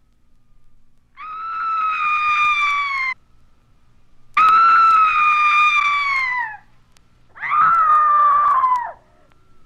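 Three long, high-pitched screams from a Halloween sound-effects record, each about two seconds, holding their pitch and then sagging at the end.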